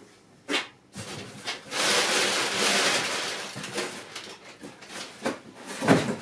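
A shoebox and its packing being handled: a click, then about two seconds of loud rustling, followed by several knocks, the loudest near the end.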